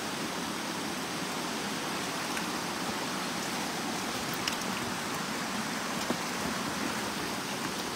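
Steady rush of shallow river water running around the wader's legs and over the stones, with a couple of faint taps about halfway through.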